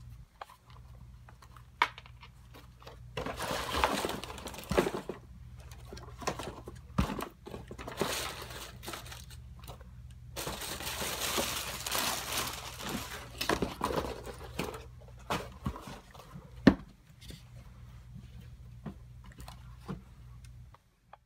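Handling noise as sneakers and their box and paper are moved about: two long stretches of rustling and crinkling, with a few sharp knocks, over a steady low hum.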